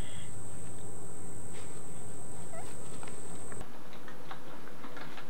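Steady high-pitched insect buzz over a low outdoor rumble, which cuts off suddenly about three and a half seconds in. It gives way to quieter room hiss with a few faint clicks.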